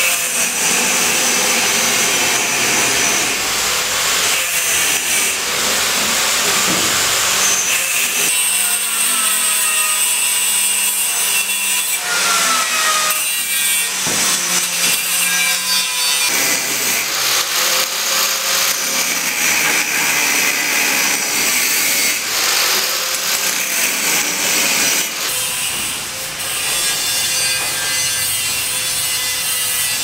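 Electric angle grinder grinding steel: a harsh continuous rasp over a faint steady whine, its pitch shifting a few times as the disc is pressed into the metal.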